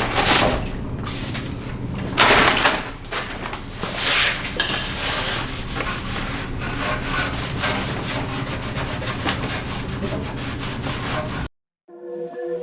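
Repeated hand-rubbing strokes over a car body panel, with a steady low hum underneath: the wipe-down of the repaired area before primer. Near the end the rubbing cuts off and music starts.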